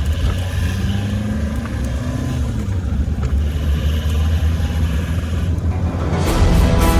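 Truck running on the road: a steady low engine and road rumble. Music comes in about six seconds in.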